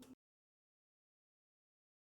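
Silence: the audio ends just after the start, leaving digital silence.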